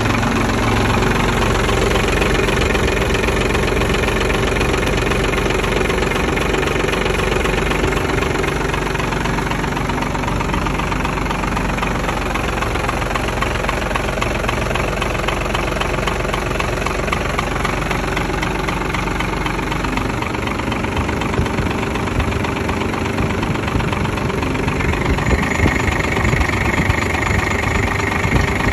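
1995 Cummins B5.9 inline-six diesel idling steadily. A higher whine comes in near the end.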